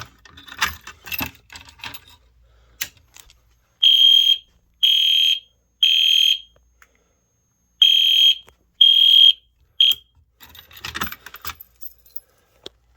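EST Genesis horn strobe sounding the temporal-three fire alarm pattern: three short, loud horn blasts, a pause, then three more, the last one cut short. Key and lock rattling at a pull station comes before and after the horn.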